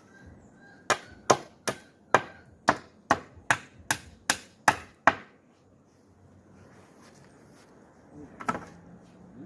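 A hammer striking wood, about eleven quick even blows over some four seconds, then a single lighter knock near the end.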